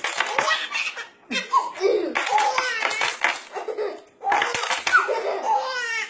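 A baby laughing in bursts as a bunch of keys is jingled, about three rounds of metallic jingling, each answered by laughter.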